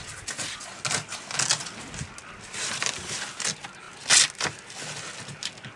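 A series of short rustles and scrapes as the camper's fabric door frame is handled and pressed into position with Velcro. The loudest comes about four seconds in.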